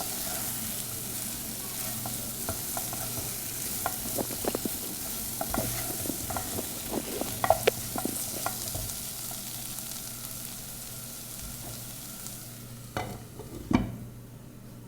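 Liver and masala frying in a pan, with a steady sizzle and a spoon clicking and scraping against the pan as it is stirred. The sizzle dies down near the end, followed by two knocks.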